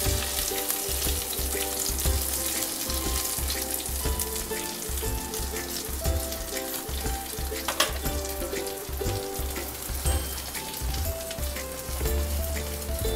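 Fish sizzling in hot mustard oil, a steady frying hiss as it is handled with tongs and then charred over an open gas flame on a wire grill. Soft background music with a slow melody plays throughout, and there is a sharp click about eight seconds in.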